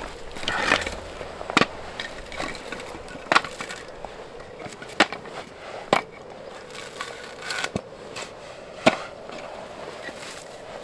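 Split firewood logs knocking together as they are handled and pulled from a mesh sack: several sharp wooden knocks a second or two apart, with rustling between them.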